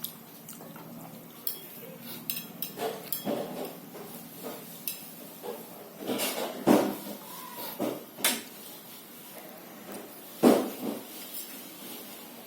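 Eating noises at a plate: scattered light clicks and clinks of dishware, with two louder dull knocks about seven and ten seconds in.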